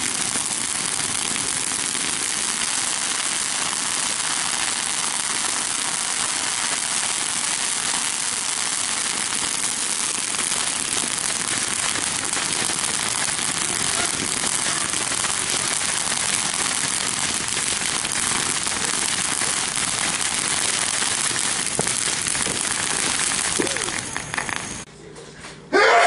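A lit ground firework spraying with a steady, loud hiss for about 25 seconds, then burning out suddenly near the end.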